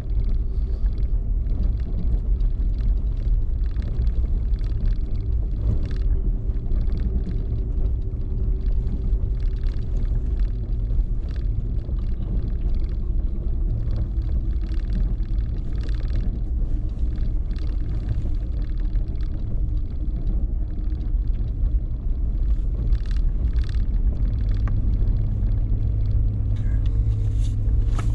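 A 2018 Nissan Frontier Pro-4X's V6 engine running at low speed, a steady low rumble, with frequent knocks and rattles from the truck working over a rough dirt track. A deeper hum grows stronger near the end.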